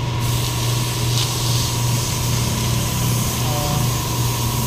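Steady low mechanical hum of a running motor or engine, unchanging in pitch and level, with a faint higher whine above it.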